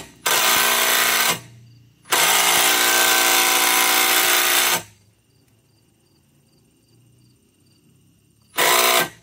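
Impact wrench driving a lug nut down a new wheel stud, pulling the stud's splined shank into the wheel hub until it seats. It runs in three bursts: one of about a second, a longer one of nearly three seconds, and a short one near the end.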